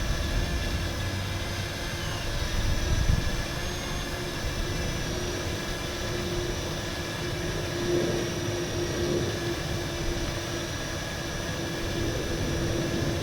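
Parrot Anafi quadcopter's propellers whining steadily in flight, with a low rumble underneath.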